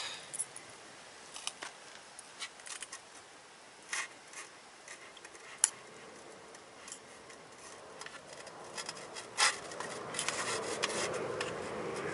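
Scattered light clicks, taps and scrapes of camp cookware being handled. About ten seconds in, the steady rising noise of an airliner climbing overhead comes in and grows louder.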